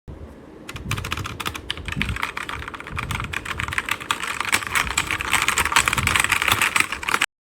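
Fast typing on a 60% wireless mechanical keyboard: a dense, rapid run of key clicks that starts about a second in, grows louder, and cuts off suddenly near the end.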